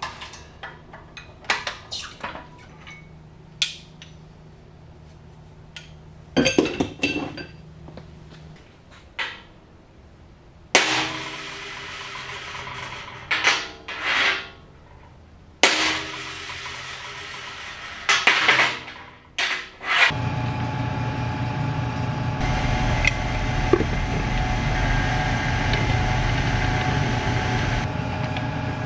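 Metal workshop sounds: clinks and knocks of steel parts and tools handled on a steel bench, with several short louder bursts. From about twenty seconds in, an electric machine motor runs with a steady hum.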